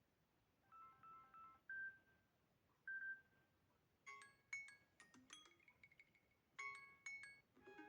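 Samsung Galaxy A52 notification sounds played one after another: a quick repeated three-note chime, two single short tones, a run of bright plucked bell-like notes, then a two-note chime near the end.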